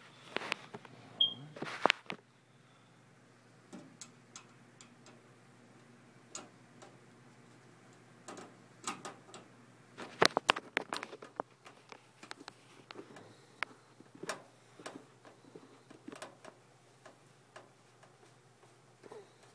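Scattered clicks, taps and light knocks of a screwdriver and hands working on a metal PC case, with a denser run of clicks about ten seconds in.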